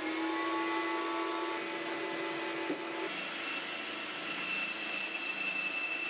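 Band saw running with a steady hum. About three seconds in, its blade starts cutting into a bark-covered oak log and a harsher, noisier cutting sound takes over.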